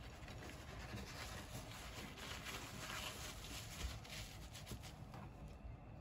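Kitchen paper rustling and crinkling as hands fold it around a block of grilled tofu, with a soft bump about four seconds in.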